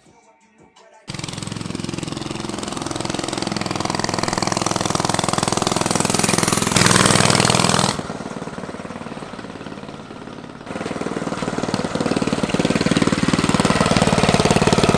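Unmuffled Predator 212 single-cylinder four-stroke engine on a mini bike running with no exhaust pipe, coming in about a second in. It is loudest for about a second around the middle, drops back, then builds again in the last few seconds.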